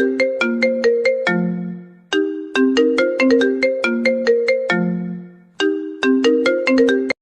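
iPhone ringtone: a short melody of quick plucked notes, repeating about every three and a half seconds, then cut off abruptly near the end.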